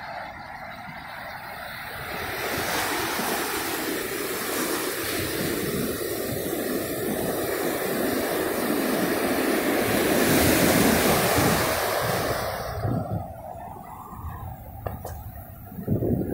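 Pacific surf breaking on a sandy beach: a steady rush of waves that swells to its loudest a little past halfway, then falls away. Near the end there are gusts of wind buffeting the microphone.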